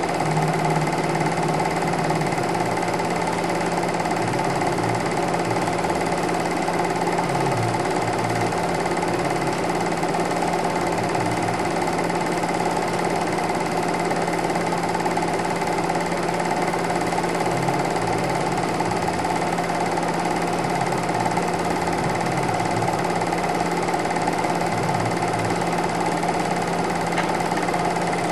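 Super 8 film projector running steadily, a constant mechanical motor hum and whir.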